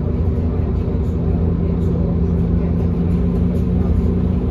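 Scania OmniCity double-decker's nine-litre five-cylinder diesel engine running steadily at idle, a low rumble with a steady hum, heard from inside the passenger saloon.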